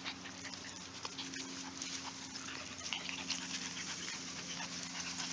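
Six-week-old Norwegian Buhund puppies playing in grass: many small irregular rustles and scratchy clicks as they scramble about. A faint steady low hum runs underneath.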